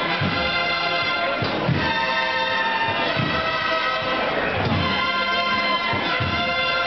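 Procession band playing a slow march, brass instruments holding sustained chords over low drum beats.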